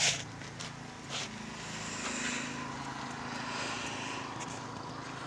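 Doosan excavator's diesel engine running steadily at idle. A hiss rises and fades over it in the middle.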